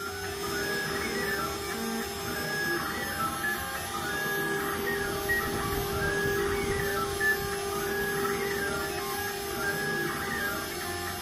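4-axis CNC router carving a wooden blank on its rotary axis: the spindle runs with a steady whine while the stepper motors give stepped tones that rise and fall in pitch as the axes move.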